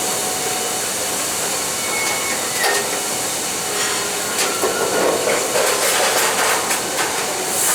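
Grain train wagons at an unloading pit: a steady hiss with scattered knocks and clanks, and a couple of brief high metallic squeals.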